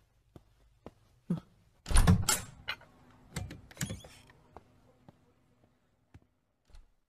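A few scattered knocks, clicks and thuds in a quiet room. The loudest is a thud about two seconds in, and a second cluster of knocks comes at around three and a half to four seconds.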